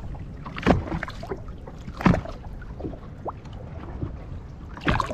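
Three sharp knocks and bumps on a bass boat's deck, the last near the end, over a steady low rumble.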